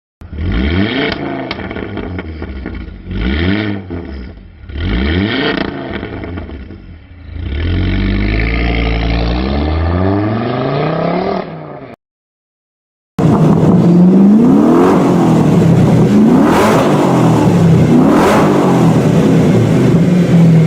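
A Ford Focus RS engine revved in several short blips and then one longer rise in pitch. After a second-long gap, a Ford GT engine revs continuously, its pitch rising and falling repeatedly, with two sharp blips near the end.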